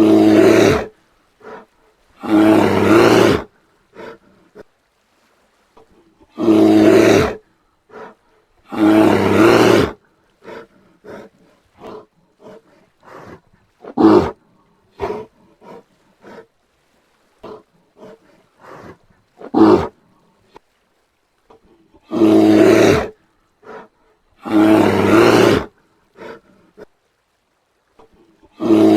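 Brown bear roaring: loud calls about a second long, mostly in pairs two seconds apart, with shorter calls and faint grunts between them.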